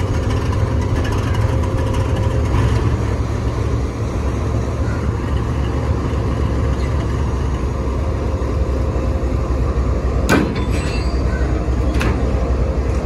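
Diesel locomotive engine running with a steady low rumble during coupling to passenger coaches. Near the end there are two sharp knocks about two seconds apart.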